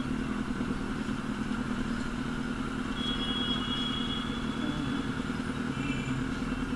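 Kawasaki Z800's inline-four engine running at a steady low idle, an even hum with no revving.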